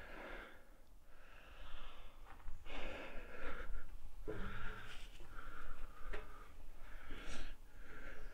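A person breathing heavily through a face mask close to the microphone, several wheezy in-and-out breaths about a second apart, with a single faint knock partway through.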